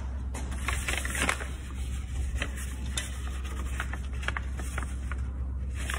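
Scattered clicks, scrapes and rubbing from a hand tightening the belt-tension lock knobs on the side of a Craftsman 15-inch drill press head, most of them about a second in. A steady low hum runs underneath.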